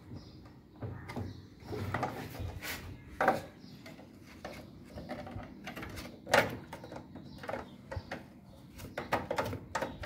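Hand-handled plastic washing-machine control panel being taken apart: irregular clicks, knocks and rattles of the plastic housing and parts, with two sharper knocks about three and six seconds in.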